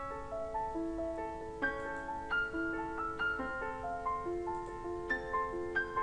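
Background piano music: a melody of held notes, a new one every half second or so.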